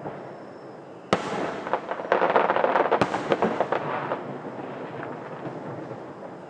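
Fireworks: a sharp bang about a second in, then a dense run of crackling pops with a second bang in the middle, dying away after about four seconds.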